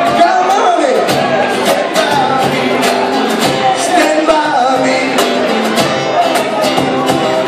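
Live band playing: a sung voice over guitar, with regular drum hits.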